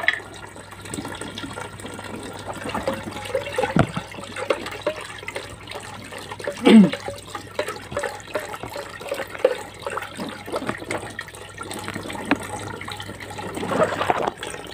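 Water sloshing and splashing in a plastic bucket as a hand stirs in lumps of caustic soda to dissolve them, with irregular small splashes and a gurgle about two-thirds of the way through. A steady low hum runs underneath and stops near the end.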